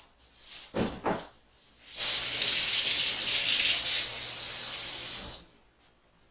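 Kitchen tap running for about three and a half seconds, starting about two seconds in and shutting off sharply, after a couple of brief handling knocks.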